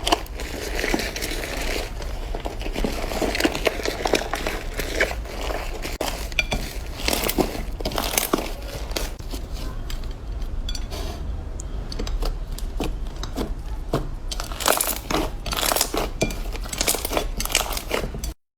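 Slime being squeezed and poked by hand, giving a dense run of small crackles and pops that cuts off suddenly near the end.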